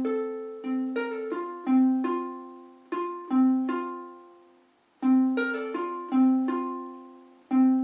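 Ukulele strung with a low G, fingerpicked note by note: each plucked note rings and fades. The same short phrase is played twice, with a brief pause between.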